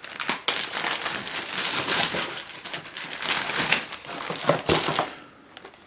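Plastic bag crinkling and rustling as it is handled, with many small crackles, fading away near the end.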